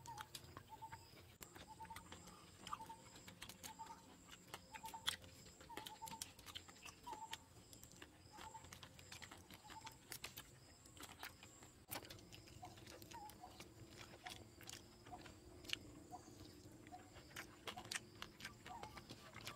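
Close-up mouth sounds of someone eating fruit: wet chewing and lip-smacking clicks, irregular and sharp. Behind them a short chirp repeats about every half second through the first half, and more sparsely later.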